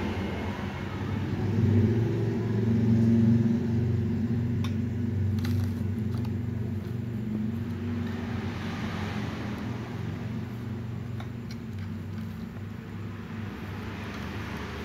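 A black cat growling low and long at another cat, a hostile warning, with a hiss about eight seconds in.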